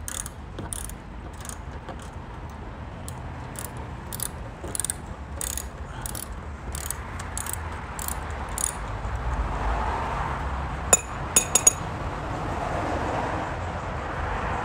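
Ratchet wrench clicking in short back-strokes, about two a second, on bolts under a car; it stops about nine seconds in, and a few sharper clicks follow a little later.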